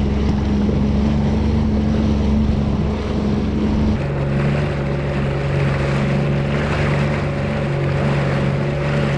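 Jet ski engine running steadily at trolling speed, with wind and water noise; its note steps down to a lower pitch about four seconds in.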